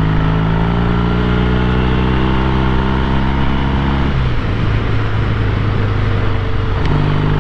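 1968 Triumph T120 Bonneville's 650 cc parallel-twin engine running steadily under way. About four seconds in the steady note drops away into a rougher, lower sound, and it picks up again near the end.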